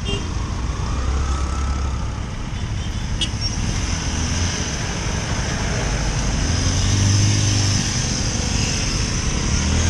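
Slow city traffic: motorcycle, scooter and car engines idling and creeping along close by, over a steady low rumble. An engine revs briefly about seven seconds in.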